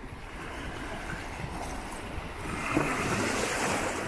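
Small waves breaking and washing up a sandy shore in the shallows, with wind on the microphone. One wave rushes in louder from about two and a half seconds in and fades near the end.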